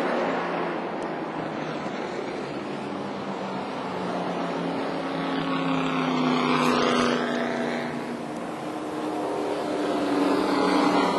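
Race truck engines running on a short oval track, their sound swelling as trucks pass, loudest about six to seven seconds in and again near the end.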